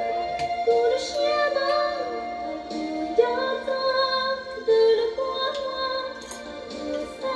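Background music: a woman's voice singing a melody over instrumental accompaniment.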